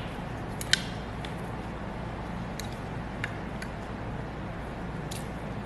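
A disposable plastic spoon clicking and scraping in a dish of rice while eating, about seven sharp little clicks, the loudest just under a second in, over a steady low hum.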